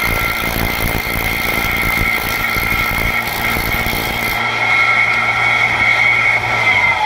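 Motor-driven rotary drum of a spoon-shaping machine running with a steady high whine while it grinds out the bowl of a wooden spoon; a high hiss of the wood against the drum stops about four seconds in.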